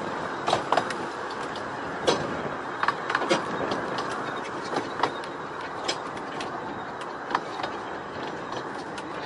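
Coaches of a 15-inch-gauge miniature steam railway train rolling along the track: a steady rolling noise with sharp, irregularly spaced clicks and knocks from the wheels and carriages.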